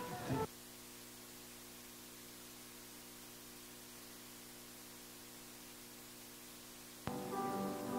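Steady electrical mains hum with faint hiss from the sound system; piano music begins about seven seconds in.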